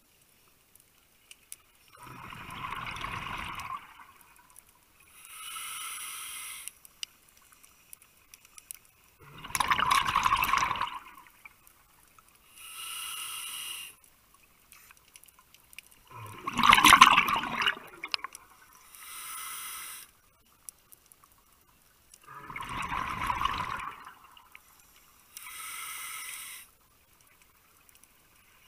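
Scuba diver breathing through a regulator underwater: a hissing inhale, then a louder rush of exhaled bubbles, repeating slowly about every six and a half seconds. There are four breaths, and the bubble rushes are the loudest part.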